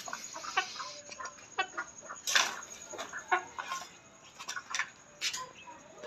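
Aseel chickens clucking in short, scattered calls, the loudest about two seconds in.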